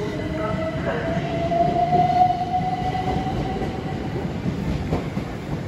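Southeastern Class 375 electric multiple unit moving through the station, with a rumble and a single high whine that rises slightly, then fades away about four seconds in.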